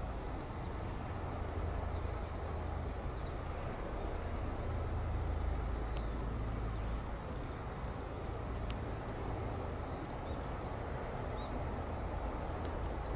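Steady low rumble of a Tobu Railway electric train running on the line, with a few faint short high chirps.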